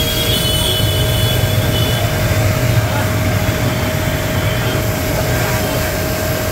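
GMP 3 HP, 160-bar electric high-pressure washer running, its motor and pump giving a steady low hum with a thin steady whine above it, while the water jet hisses out of the gun.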